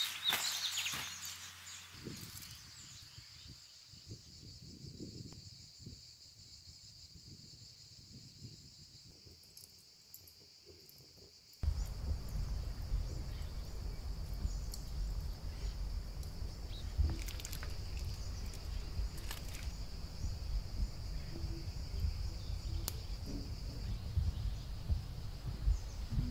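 Steady high-pitched chirring of insects, with a brief rustle at the start. About twelve seconds in, a louder low rumbling noise starts suddenly and carries on under the chirring.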